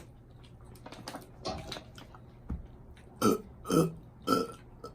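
A person burping: three short belches about half a second apart near the end, after a few quieter mouth and eating sounds.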